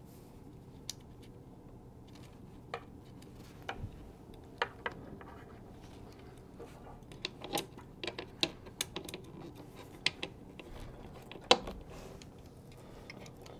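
Faint, irregular clicks and taps from a cable tie being threaded through the cable-tie base under a turntable chassis and drawn around the tonearm cables. The clicks bunch up in the second half, and the loudest comes near the end.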